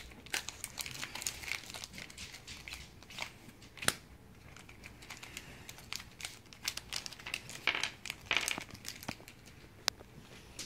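Dice Masters foil booster pack crinkling and tearing as it is opened by hand: irregular crackles and sharp clicks, with a denser burst of crinkling about eight seconds in.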